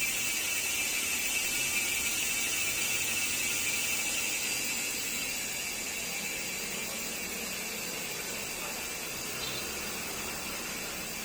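Saturn Titan bicycle freehub freewheeling as the wheel spins, its ratchet clicking so fast that it blurs into a loud, steady high-pitched buzz. The buzz eases slightly about halfway through.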